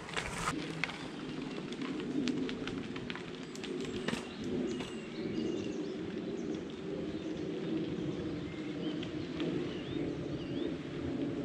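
Small birds chirping over the steady rolling noise of a bicycle ridden along a path, with scattered sharp clicks in the first few seconds.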